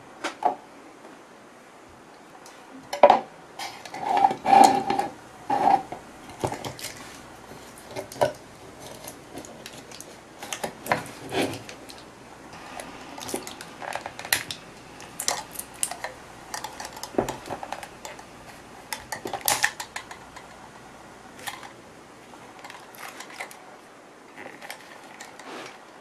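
Irregular plastic clicks, knocks and rattles as a rebuilt Dyson V10 battery cell pack is pushed and fitted by hand into its plastic battery case, with a cluster of louder knocks a few seconds in.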